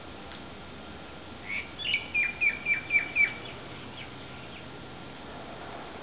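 A bird calling: a quick run of about six sharp whistled notes, about four a second, each dropping in pitch at its end, over a steady hiss.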